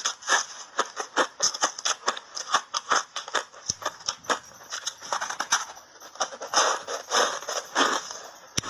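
Crunchy refrozen ice coated in matcha powder being bitten and chewed in big bites, a rapid, irregular run of sharp crackling crunches several times a second.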